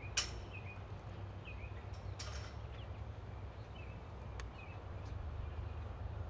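Birds chirping, a few short calls spread through the stretch, over a steady low rumble, with two brief hissy bursts about two seconds apart near the start.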